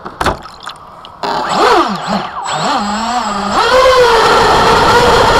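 RC racing boat's motor heard from the onboard camera. After a few knocks of water against the hull, the motor starts about a second in with a whine that rises and falls with the throttle. From about three and a half seconds in it holds a steady whine, with water rushing past as the boat runs at speed.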